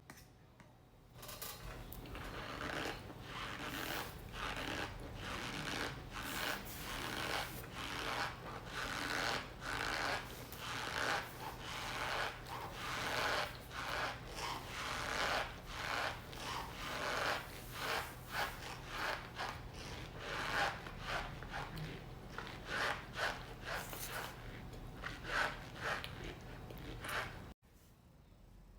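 Cornstarch being squeezed over and over, giving a long run of squeaky, crunchy rubbing strokes, roughly one to two a second. The strokes cut off suddenly near the end.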